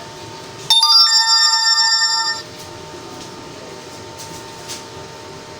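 A bright electronic chime of several steady tones, like a ringtone, sounds for just under two seconds starting about a second in and then stops abruptly. A faint steady room hum continues before and after.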